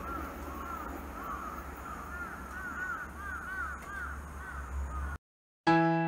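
Crows cawing again and again over a low steady rumble. About five seconds in, the sound cuts off and piano music begins.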